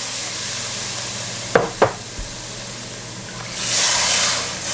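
Chicken, onions and spices sizzling in a hot pot, with two light knocks about a second and a half in, then a louder rush of hissing near the end as chicken broth is poured in.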